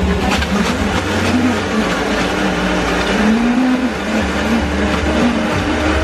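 Countertop electric blender crushing ice and fruit for a fruit shake. Its motor pitch rises and falls over and over as the tamper pushes the load down into the blades.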